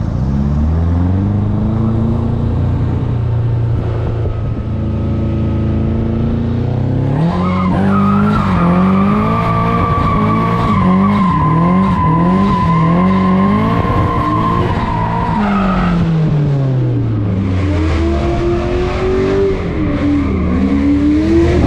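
Drift cars on course, engines revving up and down hard. About seven seconds in, a long, steady tyre squeal starts and lasts about eight seconds.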